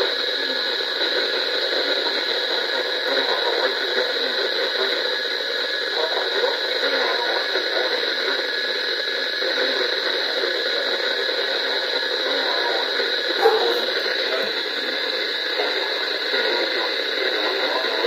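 Radio static from a receiver's speaker: a steady hiss of noisy reception with no clear voice coming through.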